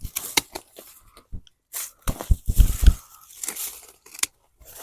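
Garden snips cutting through tough potato stalks: a string of irregular crunching snips with rustling of the leafy tops. The loudest crunches come a little past the middle.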